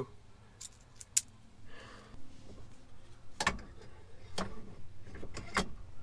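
Small Torx screws being backed out of a steering column's metal straps with a hand driver: a handful of light metallic clicks and clinks spread over several seconds, the sharpest about a second in and a small cluster near the end.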